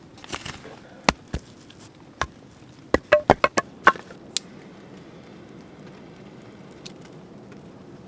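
A spade digging into soft forest soil with a couple of scraping strokes, followed by single sharp clicks and then a quick run of six or seven sharp knocks about three to four seconds in. After that only a faint steady hiss remains.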